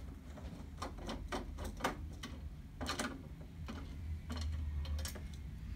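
Irregular small clicks and ticks of a Phillips screwdriver working the screws out of a Brother PR embroidery machine's plastic side cover, over a steady low hum.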